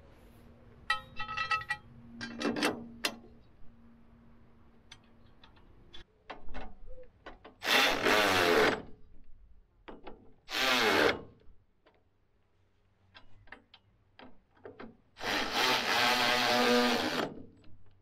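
Cordless drill/driver run in three whirring bursts, driving the bolts of the wear skids on a combine header, with metal clinks and rattles of the parts between the bursts. The skids are being replaced because they wear out on the heel.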